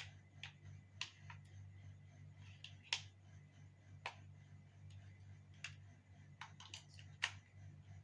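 About a dozen faint, sharp clicks and light taps at irregular intervals, over a steady low hum.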